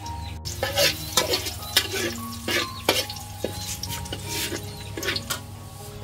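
Metal spatula scraping and stirring around a steel wok in irregular strokes, with oil sizzling in the pan.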